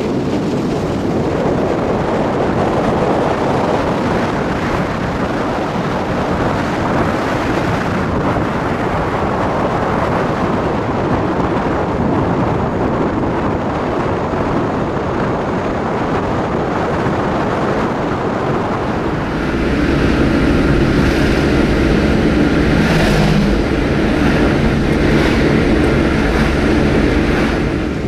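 Wind rushing over the microphone of a moving car, mixed with tyre noise on a wet road. About twenty seconds in it grows a little louder, and a steady low hum with held tones joins it.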